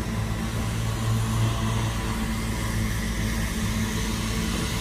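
Tractor running steadily: a constant low engine hum with an even wash of mechanical noise over it, with no change in pace.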